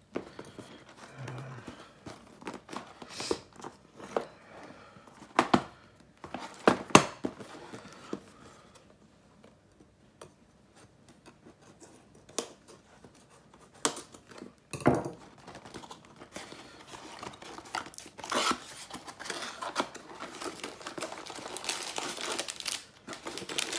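A small cardboard Lego box being opened by hand: scattered sharp snaps and clicks as the tape seals are cut with a knife and the flaps pulled open, then cardboard and plastic parts bags rustling and crinkling through the last several seconds.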